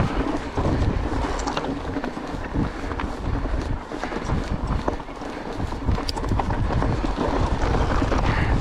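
Mountain bike riding over a rocky, gravelly trail. The tyres crunch over loose stones and the bike rattles with frequent clicks and knocks, while wind rumbles on the microphone.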